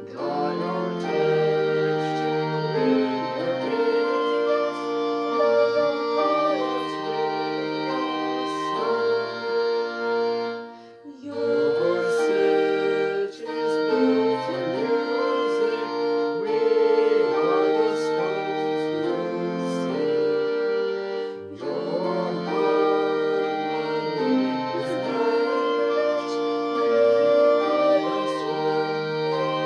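A hymn played on an organ-like keyboard, with a woman's voice singing along. It moves in phrases, with brief pauses about eleven and twenty-one seconds in.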